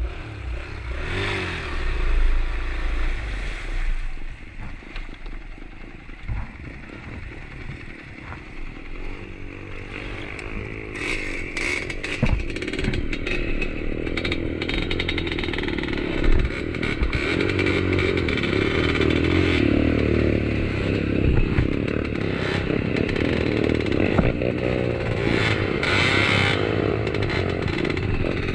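Trail motorcycle engine revving unevenly under load as it is ridden across a river, with scattered knocks. It grows louder about a third of the way in.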